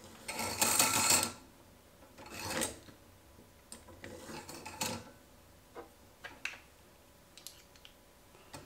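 Metal rubbing and scraping as a coil spring is worked down over the cartridge rod inside an inverted motorcycle fork tube: two longer scrapes in the first three seconds, then a string of light metallic clicks and taps as small fork parts are handled.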